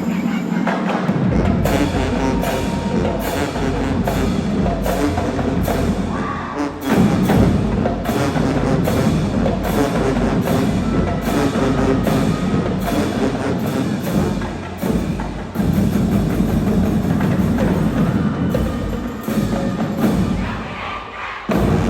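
High school marching band playing loudly, its percussion section driving a steady beat with sharp snare and bass drum strikes under the band's sustained pitched sound.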